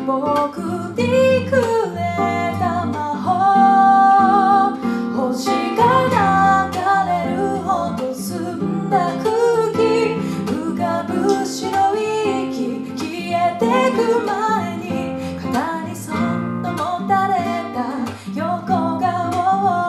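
A song with strummed acoustic guitar and a singing voice carrying the melody.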